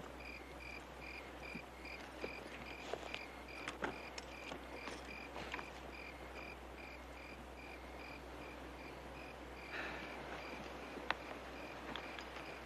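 A cricket chirping in an even, unbroken rhythm, one high note repeated several times a second, with faint scattered clicks and rustles now and then.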